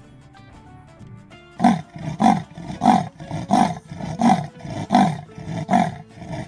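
Koala bellowing: a loud, rhythmic series of deep calls, each falling in pitch, about one every 0.7 seconds, starting about one and a half seconds in. Faint background music before the calls.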